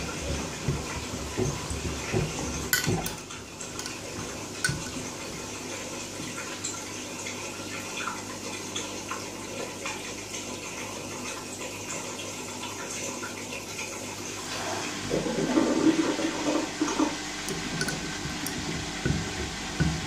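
Front-loading washing machine mid-wash: the drum turns and water sloshes inside, with a few knocks in the first few seconds from Birkenstock sandals tumbling against the drum. About fifteen seconds in the sloshing swells louder for a couple of seconds.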